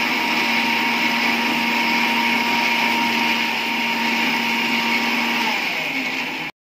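Preethi Steele mixer grinder running at full speed, grinding tomatoes and chilies in its stainless steel jar with a steady whine. About five and a half seconds in it is switched off and the whine starts to fall as the motor slows, then the sound cuts off abruptly.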